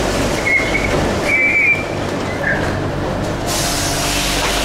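Mexico City Metro train noise: a steady rumble with a few brief high-pitched squeals in the first two and a half seconds, then a rise in hiss and a steady hum from about three and a half seconds in.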